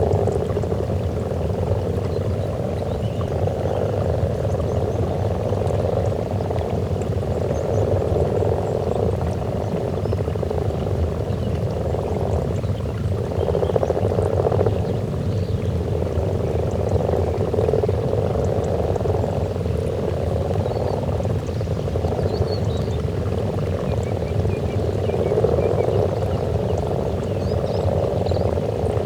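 Breeding chorus of many common frogs croaking together at a spawning pond: a dense, continuous low purring that swells and eases every few seconds.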